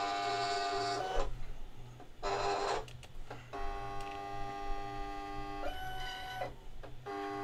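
Silhouette Cameo cutting machine's motors whining in several start-stop runs as it feeds the cutting mat in to load it. The whine changes pitch briefly about six seconds in.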